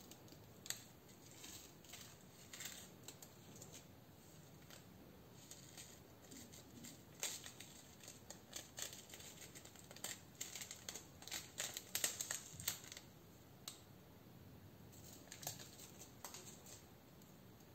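Small plastic pearl beads and sequins clicking and rattling against each other and the dish as fingers sprinkle them and press into the heap. Faint, scattered light clicks, thickest in the middle.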